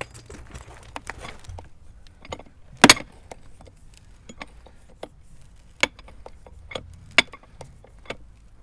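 Scattered metallic clinks and clicks of a chain-type ratchet snap cutter being handled and fitted around a clay sewer pipe. The loudest sharp click comes about three seconds in.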